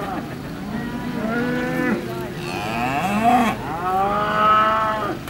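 Angus cattle mooing: three long, drawn-out moos one after another.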